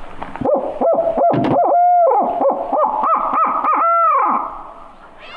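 A barred owl locator call blown by a turkey hunter: a fast string of hoots in the barred owl's 'who cooks for you' rhythm, with two longer drawn notes, the last one falling away at the end. It is used to make roosted gobblers answer.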